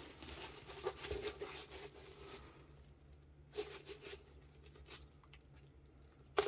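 Faint rustling and crinkling of a rolled diamond painting canvas being handled and unrolled, with a few soft taps and one sharp knock near the end.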